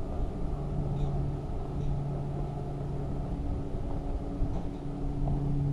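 A steady low mechanical hum with two held tones over a low rumble, with a few faint ticks.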